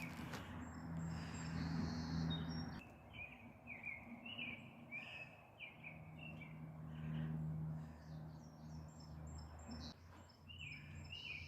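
Songbirds chirping and calling with many short repeated notes, over a faint low hum that fades in and out.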